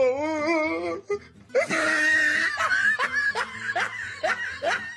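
A person laughing hard over background music: a long wavering laugh at first, then a run of short laughs.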